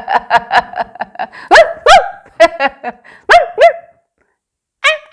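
High-pitched, yapping barks. A fast run of short yaps fades out in the first second, followed by single barks in two pairs, and more yaps begin near the end.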